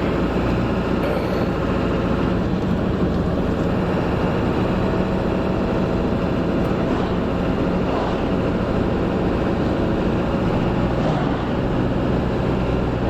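Steady engine and road noise of a vehicle being driven, an even rumble with a low hum that holds unchanged throughout.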